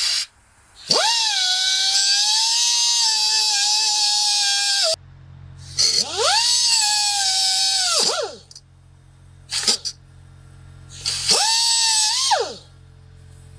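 Angle grinder cutting through a steel chain to shorten it. The motor spins up to a high whine, sags in pitch while cutting and winds down. It runs three times: about four seconds, then about two, then just over one.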